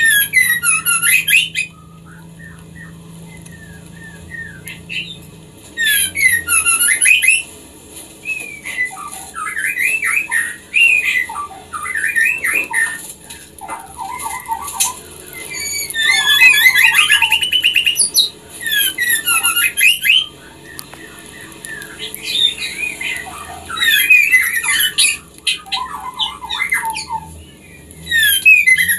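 Female white-rumped shama (murai batu) in breeding condition calling to attract a male. It gives bouts of rapid, high chattering notes, about eight of them, each a second or a few seconds long, with short pauses between.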